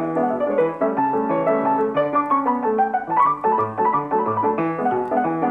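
Piano music playing a flowing melody of quick notes over a lower accompaniment.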